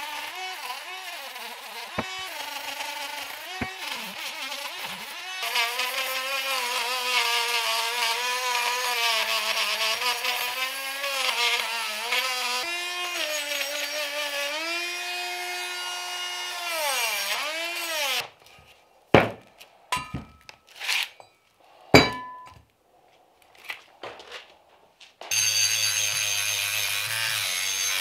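Handheld rotary multi-tool grinding rust off a steel brake caliper bracket, its motor whine wavering in pitch as the bit bites. About 17 seconds in it spins down and stops, followed by several sharp knocks as the parts are handled, then the tool runs again near the end.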